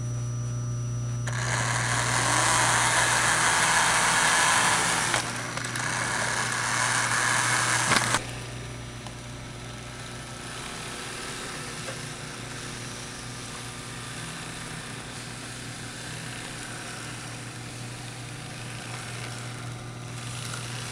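Powered A and B units of a model Santa Fe diesel locomotive set running on track: electric motor whir and wheel noise over a steady low hum. It is loudest and rushing for the first several seconds, then drops off suddenly about eight seconds in to a quieter, even running sound.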